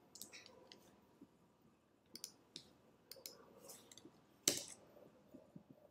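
Faint, scattered clicks of a computer mouse and keyboard, with one louder click about four and a half seconds in.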